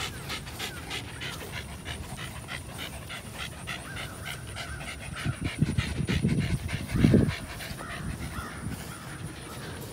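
Dog panting quickly and rhythmically with its mouth open, with a few low thumps and rustles about two-thirds of the way in, the loudest near the end.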